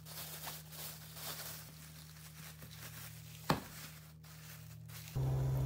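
Clear plastic bag of udon noodles crinkling and rustling as it is worked open by hand, with one sharp snap about 3.5 seconds in as the bag gives way. A steady low hum runs underneath and grows louder near the end.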